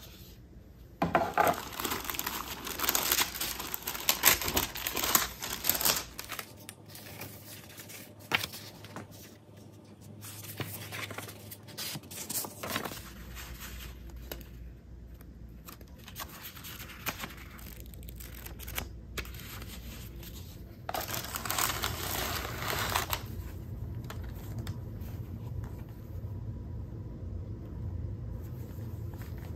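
Paper and tissue rustling and crinkling as a gift box is unwrapped by hand, in bursts with short handling clicks and knocks between them; the longest bursts come at the start and again about two-thirds of the way through.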